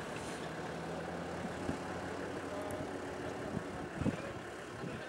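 Pickup truck engine running steadily as the loaded truck drives slowly past, the hum fading after about three seconds. A short low thump about four seconds in.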